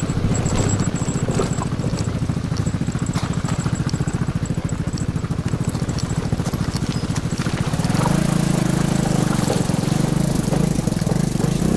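Vespa GTS 300 scooter's single-cylinder four-stroke engine running with an even, fast pulse. It gets louder and fuller from about eight seconds in.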